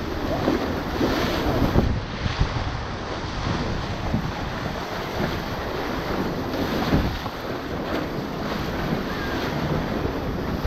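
River whitewater rapids rushing and churning around an inflatable raft, with irregular louder splashes against the raft and wind buffeting the microphone.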